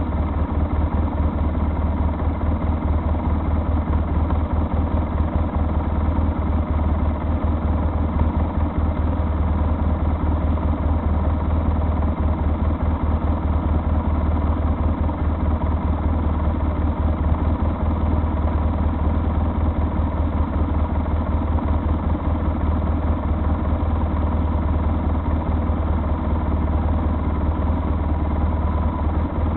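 A vehicle's engine running steadily with road noise, heard on board while driving. It is a constant deep rumble that does not change in speed or loudness.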